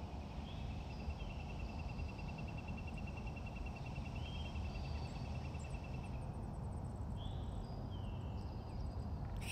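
Birds calling: one long, even, high trill lasting about six seconds, with a few short chirps over it, above a steady low rumble of background noise.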